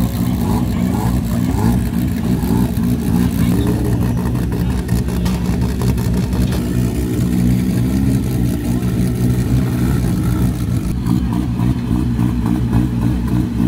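Off-road 4x4 vehicle engine running steadily with a low, even drone.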